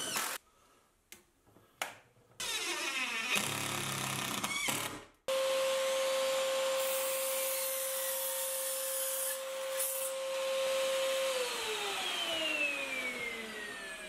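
Trend sliding mitre saw starting abruptly about five seconds in and running with a steady whine while it cuts a length of 3x2 softwood, then switched off and winding down in a long falling whine. Before it starts there are a few seconds of quieter tool noise.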